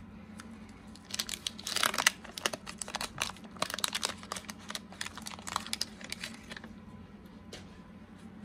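Paper wrapper of a 1986 Fleer baseball card wax pack crinkling and tearing as it is opened by hand, a dense run of crackles starting about a second in and stopping near the seven-second mark.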